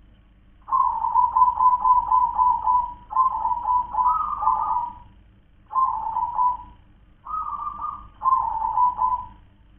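Zebra dove (perkutut) singing: several phrases of rapid, stuttering coos separated by short pauses.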